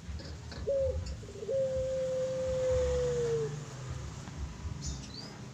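Young puter pelung, a domestic Barbary dove bred for its long coo, cooing: a short clipped note, then one long drawn-out coo of about two seconds that sags slightly in pitch toward its end.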